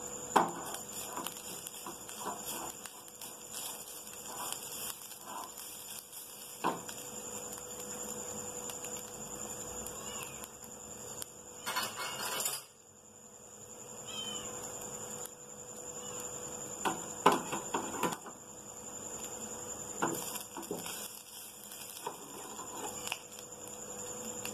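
Wooden spatula stirring grated coconut as it roasts in ghee in a steel frying pan: irregular scrapes and light knocks against the pan, with a longer scraping burst about halfway through.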